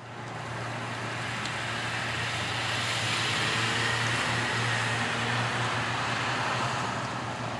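Steady rushing outdoor background noise with a low, even hum underneath, fading in at the start.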